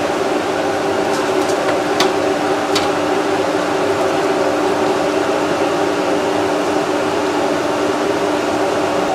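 Steady mechanical hum of a kitchen exhaust fan, with a few light clicks in the first three seconds.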